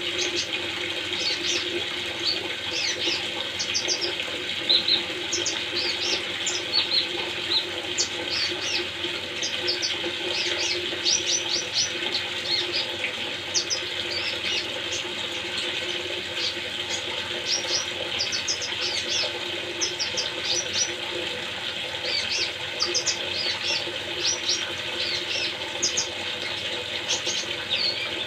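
Quick, high-pitched chirps of a small songbird, coming in short runs throughout, over a steady rush of running water.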